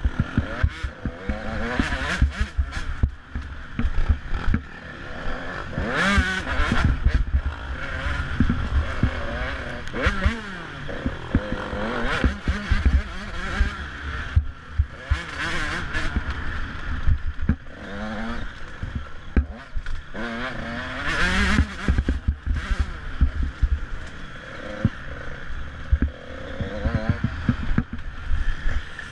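Off-road motorcycle engine revving up and down repeatedly as it is ridden hard over a rough dirt track, recorded on board the bike, with a running clatter of knocks from the rough ground.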